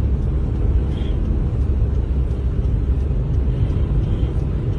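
Car driving on a snow-covered road, heard inside the cabin: a steady low rumble of engine and tyres.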